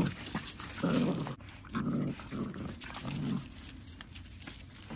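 Miniature dachshund making four short, low vocal sounds in quick succession, stopping a little past halfway.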